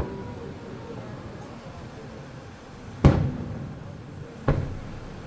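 Aerial firework shells bursting: two booms about a second and a half apart, the first louder, over a crowd's murmur.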